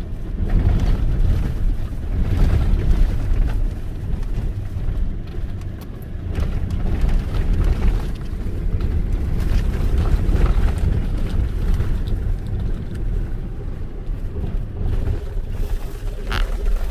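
Truck driving over rough, bumpy beach sand: a steady low rumble of engine and tyres that swells and eases unevenly.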